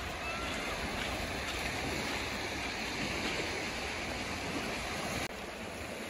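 Small waves washing onto a shallow sandy beach: a steady hiss of surf, dropping slightly about five seconds in.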